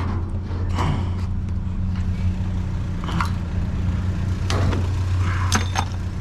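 Vehicle engine idling with a steady low hum, with a few light clinks and scrapes of metal bits being handled.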